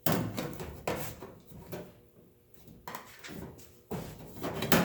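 Hand-formed sheet-steel patch panel being handled and test-fitted against the car body: about six irregular clunks and scrapes of thin metal.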